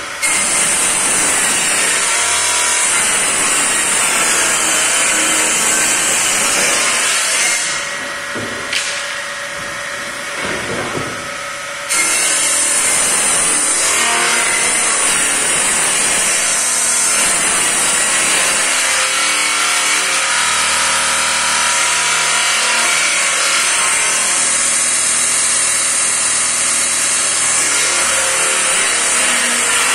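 Table-mounted circular saw running and cutting through large sheet panels fed by hand, a loud steady whine with a hiss. It goes quieter for about four seconds, then the loud cutting sound returns suddenly about twelve seconds in.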